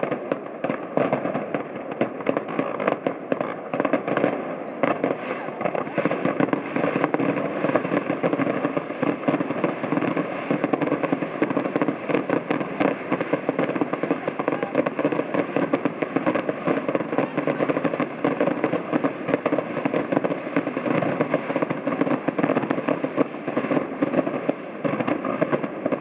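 Fireworks going off in dense, rapid succession: a continuous crackle of many small pops that keeps an even level throughout.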